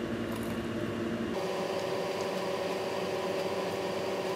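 Steady hum with several steady tones, over faint chewing of a fried chicken sandwich; the hum changes abruptly about a second and a half in.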